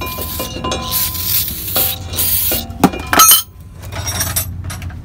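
Aerosol brake cleaner hissing in spurts onto a new brake rotor, with light metallic clinks and ringing from the metal parts being handled. The spraying stops about three and a half seconds in, leaving only a few small clicks.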